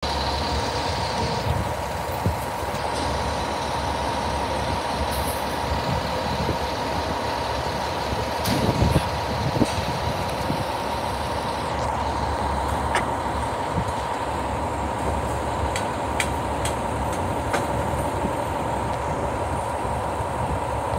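Fire engine idling in the firehouse bay: a steady rumble with a constant high tone over it, and a few short clicks and knocks.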